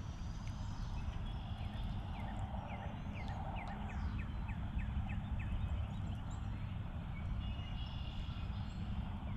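Outdoor ambience in light rain: a steady low rumble, with a bird calling a quick series of short falling chirps, about four a second, for several seconds, plus a few brief high notes.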